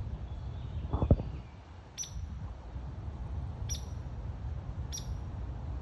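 Downy woodpecker giving short, sharp high 'pik' calls, three of them spaced a second or more apart, over a steady low rumble. A dull thump comes about a second in.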